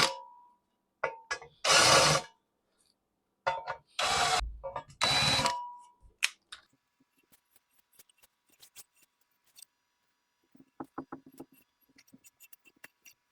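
Power drill run in four short bursts of under a second each, enlarging the holes in a cast-iron milling head housing. Faint metallic clicks and taps follow.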